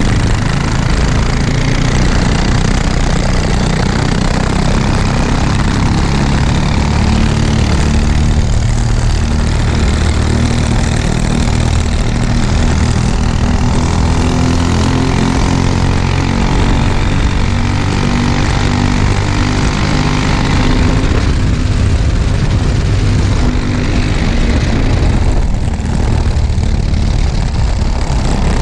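Racing kart's single-cylinder engine running hard at close range, its pitch climbing and dropping with the throttle through corners and straights.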